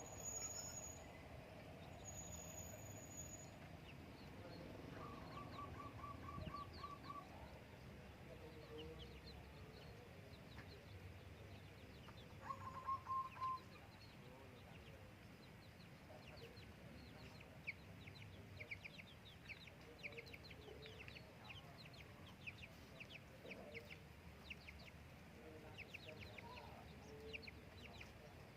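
Faint zebra dove (perkutut) calling in short runs of rapid repeated notes, once about five seconds in and again, louder, near the middle. Through the second half there is fast, high chirping from other small birds or insects.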